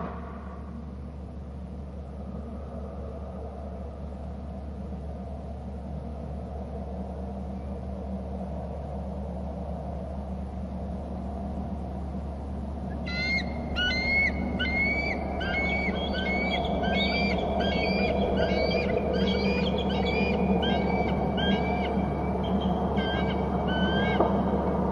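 Bald eagle calling: a fast series of high, repeated screeching notes, several a second, that starts about halfway through, over a steady low hum.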